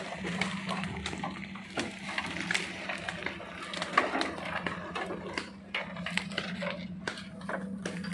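Off-road 4x4's engine running steadily at low revs, with frequent sharp cracks and scraping as branches and undergrowth snap and drag against the vehicle and its tyres while it pushes through the brush.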